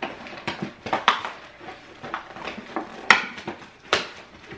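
Takeout bag and food wrappers crinkling and rustling as someone rummages through them by hand, in an uneven run of crackles with two sharper rattles about three and four seconds in.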